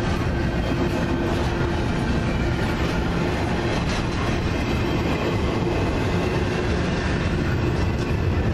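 CN double-stack intermodal freight train rolling past close by: a steady rumble and clatter of steel wheels on the rails as the loaded well cars go by.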